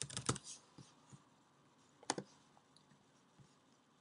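Computer keyboard keystrokes, a quick run of taps in the first half second, then a few sparse clicks with a louder double click about two seconds in.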